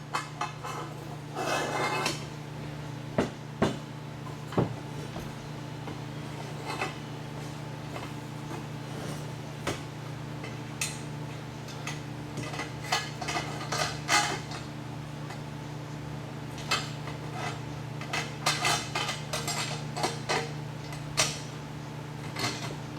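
Metal parts and hand tools clinking and tapping in irregular knocks, over a steady low hum.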